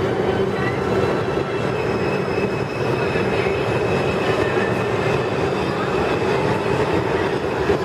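Bombardier R142 subway train approaching through the tunnel into the station: a steady, loud rumble of wheels on rail with a thin high whine running over it.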